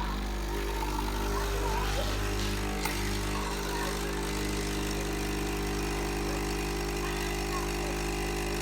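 Coffee machine running with a steady low mechanical hum, its pump working.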